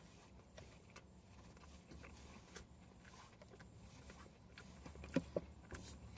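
Quiet room tone with a few faint scattered clicks and a soft knock about five seconds in.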